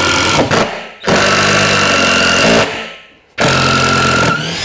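Ryobi 18V ONE+ cordless impact driver hammering a screw into a timber plank, in three runs of rapid rattling impacts with short pauses between them.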